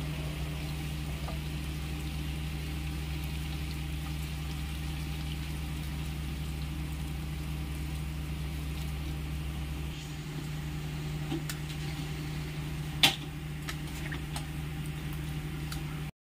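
Chicken curry sizzling and bubbling in a pan as hot water is poured in, over a steady low hum. One sharp click comes near the end, and the sound cuts off just before the end.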